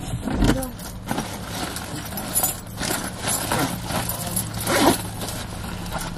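Rustling and small clinks from fabric and belongings being handled in a car's cabin, over a steady low hum.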